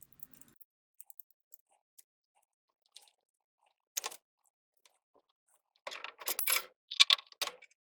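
Scattered sharp clicks and clinks of a wrench and metal pipe fittings being worked to disconnect a gas supply line. There is a single click about halfway through and a quick cluster of them near the end.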